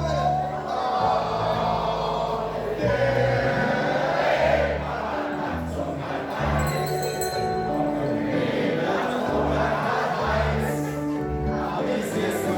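A group of people singing together over instrumental accompaniment with a steady bass line: a sea-shanty sing-along.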